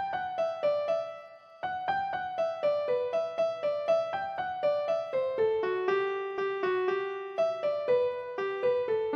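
Background music: a piano melody of separate notes, about three or four a second, with a brief pause about a second and a half in.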